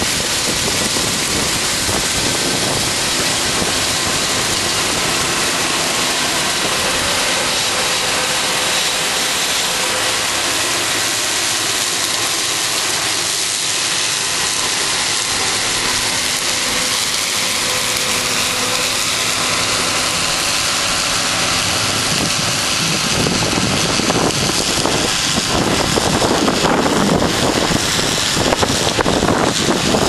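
John Deere combine running steadily as it harvests soybeans, its engine and threshing machinery making a constant hum and hiss. About two-thirds of the way through, wind starts buffeting the microphone with gusty rumbling.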